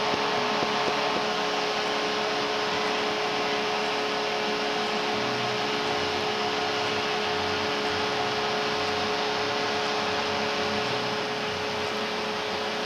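Large arena crowd cheering in a steady, unbroken wash of noise, celebrating the home team's series-clinching win.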